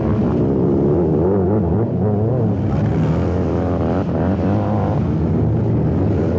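Engines of several sidecar motocross outfits, four-strokes, revving up and down. Their pitches rise and fall and overlap.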